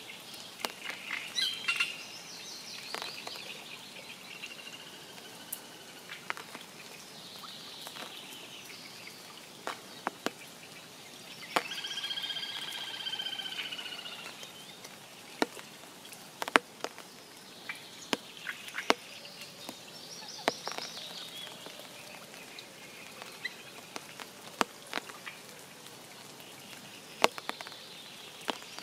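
Light spring rain falling steadily, with scattered sharp drops landing close by. Birds chirp now and then, and a longer pulsed call carries from about twelve to fourteen seconds in.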